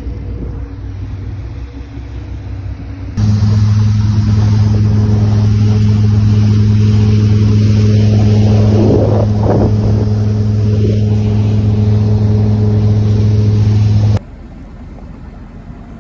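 Boat motors running steadily across abrupt edits. First comes a motor with the rush of water. About three seconds in a much louder, steady, deep hum takes over, then cuts off suddenly near the end, leaving a quieter motor sound.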